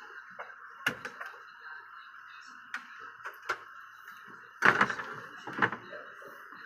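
Knocks, clicks and scrapes of an LED TV's diffuser sheet and metal back frame being handled and lifted, with a louder clatter about two thirds of the way through.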